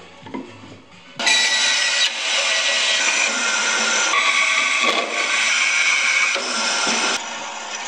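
Band saw running loudly and steadily from about a second in, easing off a little near the end.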